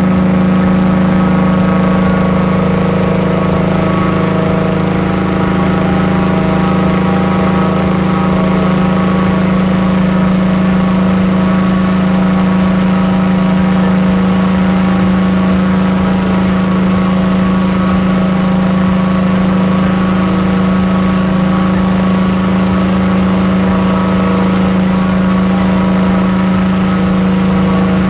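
Gasoline inflator fan driven by a Honda single-cylinder four-stroke engine, running steadily at full throttle with an even, constant drone. It is blowing cold air into a hot-air balloon envelope during cold inflation.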